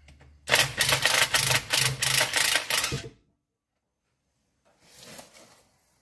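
Cordless impact wrench hammering in rapid bursts for about two and a half seconds, backing out a bolt on a tractor's rear transmission cover. It starts about half a second in and stops abruptly.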